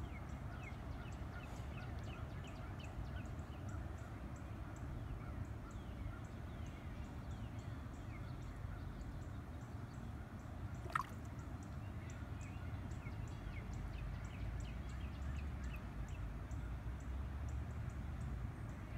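Quiet outdoor ambience at the water's edge: a steady low rumble with many faint chirping calls from small animals in the background, and one sharp click or plop about eleven seconds in.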